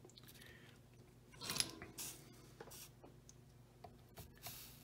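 Quiet bench work on a leaded glass panel held in a vise: light clicks of metal tools and a few short hisses as flux and a soldering iron are brought to the lead.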